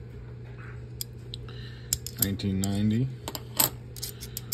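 Half-dollar coins clicking against one another as they are thumbed off the top of a hand-held stack: a few separate sharp clicks. A short low hum from a person's voice comes about two seconds in.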